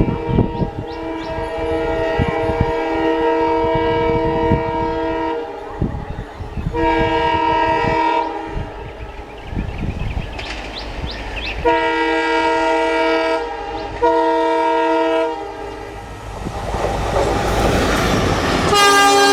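Indian Railways locomotive air horn sounding a long blast and then several shorter blasts as a train runs past, wheels clattering over the rail joints. A rising rush of passing train noise fills the gap before the horn sounds again near the end.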